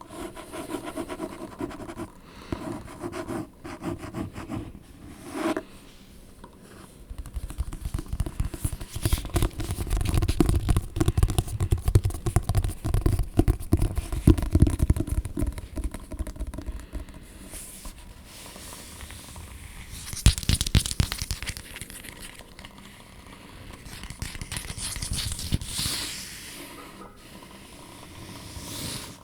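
Scratching and tapping close to the microphone, in quick runs of fine strokes. The scratching grows fuller and louder from about 8 s to 16 s in, with shorter louder patches later.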